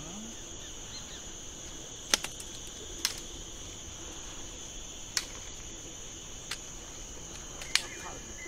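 A steady, high-pitched chorus of insects (cricket- or cicada-like) with a lower band beneath it. About five sharp cracks or snaps are scattered through it, the loudest about two seconds in and near the end.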